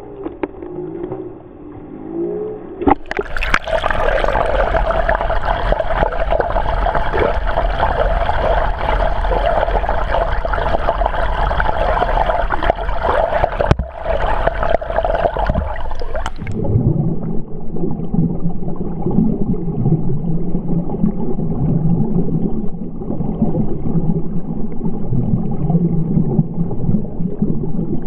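Pool water churning and splashing from a swimmer's front crawl, heard from a camera at and below the water surface. A loud, bright splashing rush starts about three seconds in, and about halfway through it turns abruptly duller and more muffled.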